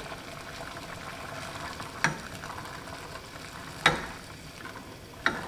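A pot of water at the boil, bubbling steadily, as dry tapioca pearls are slowly poured in from a metal measuring cup. Three sharp taps ring out, about two seconds in, near four seconds and near the end.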